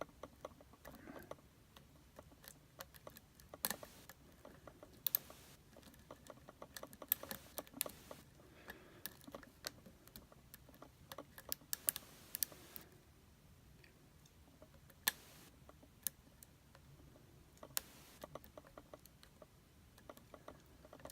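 Lock pick and tension wrench working the pins of a Schlage pin-tumbler lock: many small irregular metallic clicks and light scrapes, with a few sharper clicks, as the pins are single-pin picked.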